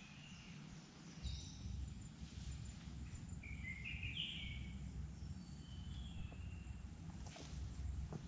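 Scattered short bird chirps and calls in the forest, with a low rumble that comes up about a second in.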